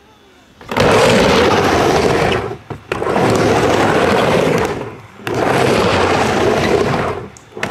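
Skateboard wheels rolling on concrete, a loud rough rumble that comes in three stretches of about two seconds each with short breaks between.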